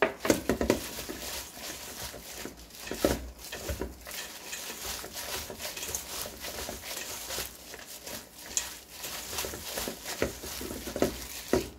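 A plastic-gloved hand tossing and squeezing gochujang-coated dried shredded squid in a stainless steel bowl: constant crinkling of the thin disposable glove and rustling of the sticky strips, with several louder knocks along the way.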